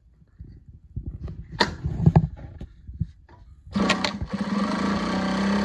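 Juki DLN-9010A-SH industrial lockstitch sewing machine starting about two-thirds of the way in and then running steadily, stitching through eight layers of denim. Before it starts there are light knocks and rustles as the folded denim is handled on the table.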